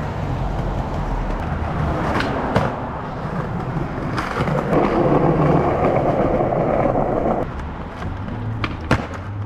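Skateboard wheels rolling over concrete sidewalk, a steady rumble that gets louder for a few seconds in the middle. Sharp clacks of the board sound a few times, loudest about two and a half seconds in and near the end.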